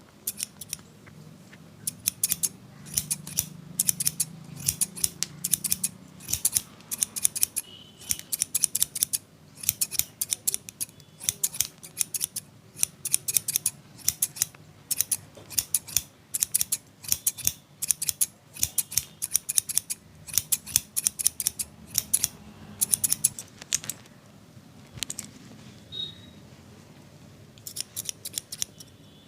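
Barber's scissors snipping hair in runs of quick, crisp cuts with short breaks between runs. The snipping stops for a few seconds near the end, then comes back in one last short run.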